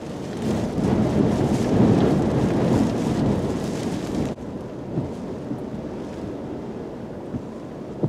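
Hurricane winds buffeting the microphone with driving rain: a loud, low, rumbling gusting for about four seconds. It then drops suddenly to a steadier rush of wind, rain and surge water.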